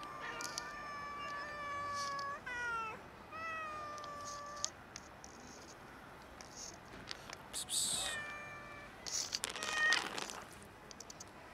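Domestic cat meowing repeatedly: a long drawn-out meow lasting about two and a half seconds, then a few shorter ones, a pause, and two more meows near the end, with brief rustles in between.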